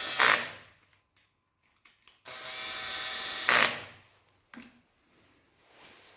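Cordless drill-driver running in short bursts to drive in the timing chain guide bolts: one run ends just after the start and a second, about a second and a half long, starts about two seconds in; each run ends with a brief louder burst.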